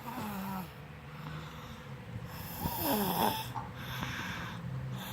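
Young child snoring like an adult, two rattling snores, one near the start and one about three seconds in.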